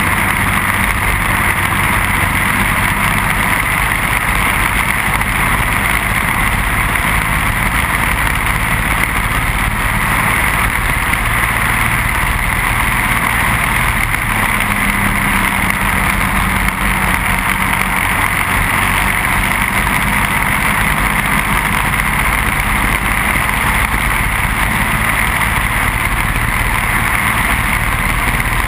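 Briggs & Stratton Animal single-cylinder four-stroke racing kart engine running under way at racing speed, heard from on board the kart. The sound stays steady throughout.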